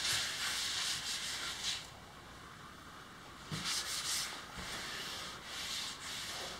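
Paste wax being rubbed by hand with a pad over a painted kayak mold: a soft, dry hiss in back-and-forth strokes. It pauses briefly about two seconds in, then resumes.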